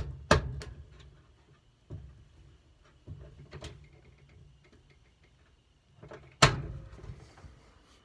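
Several sharp knocks and clunks, the loudest about six and a half seconds in, over the faint low hum of a GE Hydrowave GTAP1000MWW top-load washer washing a load of towels.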